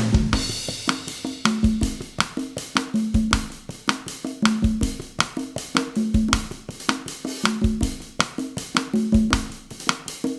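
Bossa nova groove on drum kit and congas at 160 bpm: a one-bar pattern repeating about every second and a half, with pitched conga tones over cymbal or hi-hat ticks, snare and kick drum.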